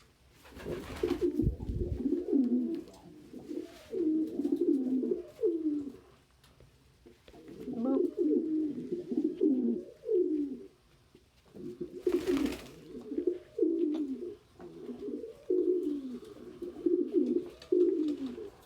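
Domestic pigeons cooing in repeated low, wavering phrases, in three long bouts with short pauses between. A brief rustling noise comes about a second in and again about twelve seconds in.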